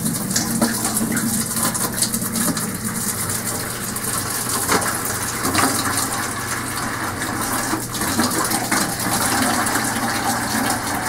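Water streaming from a washing-machine hose into a bucket and splashing steadily, with scattered short clicks. This is newly charged hydronic heating lines being purged of trapped air through a purge valve, run until the water comes clear with no air bubbles.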